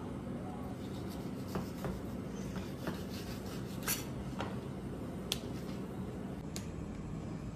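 A knife scraping and cutting along a raw fish fillet on a cutting board while the skin is pulled away: a scattered series of short scrapes and clicks over a steady background hum.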